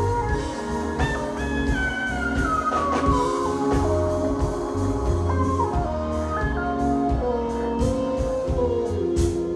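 Live funk-jazz band improvising: a heavy bass and drum kit under keyboards, with a lead melodic line that slides and steps downward over several seconds. The drum hits get sharper near the end.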